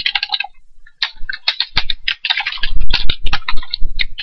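Typing on a computer keyboard: a short run of keystrokes, a pause of about half a second, then a fast, dense run of key clicks.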